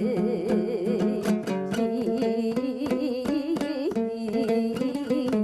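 Kazakh folk music between sung verses: a plucked dombra strummed rhythmically over sustained held notes, with a wavering, wordless vocal line in the first second.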